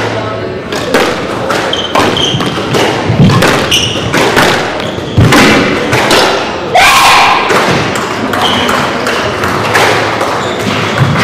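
Squash ball being hit and striking the court walls in a rally: a run of sharp thuds, roughly one every half second to second.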